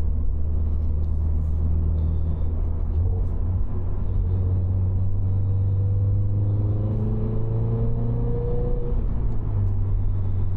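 Toyota GR86's 2.4-litre flat-four through a Cobb titanium cat-back exhaust, heard from inside the cabin: a steady low drone, then the engine note rising under acceleration from about five seconds in and falling away near nine seconds. Not droney.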